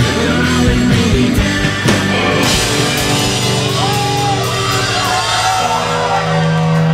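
Live rock band playing loud, with drums, electric guitars and a singing voice. About two and a half seconds in the drums stop on a crash and the guitar chords are held and left ringing while voices sing and shout over them, as at the end of a song.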